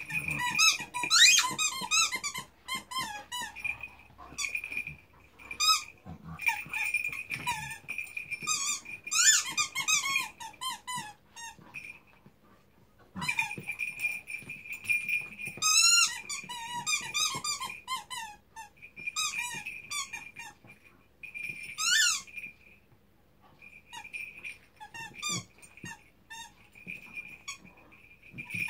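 A cocker spaniel chewing a squeaky dog toy, squeaking it in runs of quick, high-pitched squeaks broken by short pauses.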